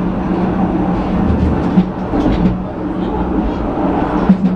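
Penang Hill Railway funicular car running on its rails, heard from inside the car: a steady hum with rattling wheel noise, and a sharp clack about two seconds in and another near the end.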